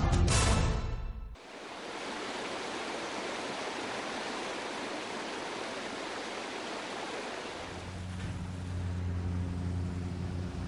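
Music with a beat cuts off about a second in; then a shallow rocky stream's water rushes steadily, and from about eight seconds in a pickup truck's engine hums low beneath it.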